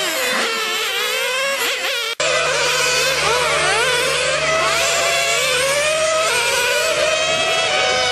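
Several 1/10-scale nitro RC racing cars running at high revs. Their overlapping whines rise and fall in pitch as they accelerate and brake through the corners. The sound cuts out for a moment about two seconds in, then carries on with a steady low hum beneath.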